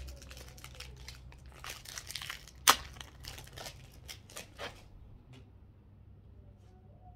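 A trading card pack's foil wrapper being torn open and crinkled by hand: a run of crackles with one sharp snap about two and a half seconds in, dying away after about five seconds.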